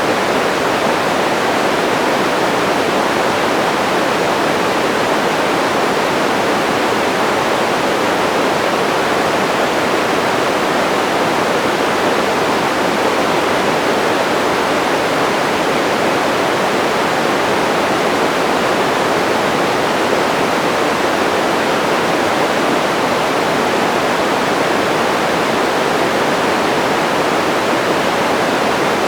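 Steady white-noise sleep sound: an even, unchanging rush of noise with no rhythm or breaks, fuller in the middle range and softer in the highs and lows.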